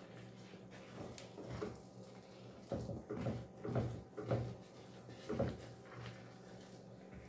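Wooden spoon knocking and scraping against a cooking pot as thick cornmeal is stirred and turned into the water, in irregular strokes, several close together in the middle of the stretch.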